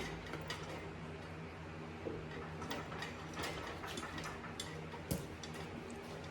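Scattered, irregular clicks and clinks of hand-tool work on a tractor transmission, over a steady low hum.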